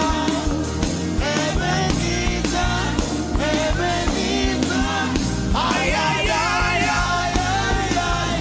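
Loud worship music: voices singing and chanting over a band with a steady drum beat and sustained bass.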